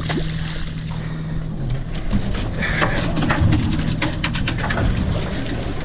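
Boat's engine idling with a steady low hum, with a scatter of sharp clicks and knocks in the second half.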